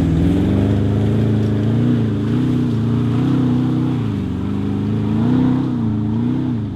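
A four-wheel-drive vehicle's engine working hard, its revs rising and falling in waves about once a second.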